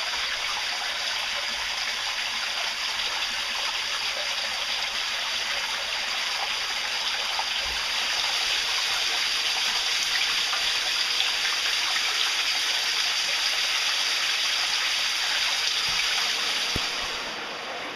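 Rain-swollen cave stream pouring and splashing down over rocks: a steady rush of water that gets louder about halfway through and falls away near the end.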